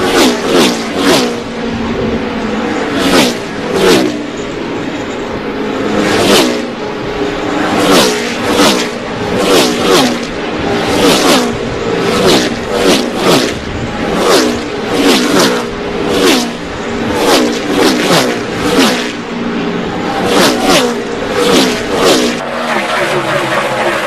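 NASCAR stock cars' V8 engines running flat out past the track in quick succession, a pack going by one after another, each car's engine note swelling and dropping in pitch as it passes.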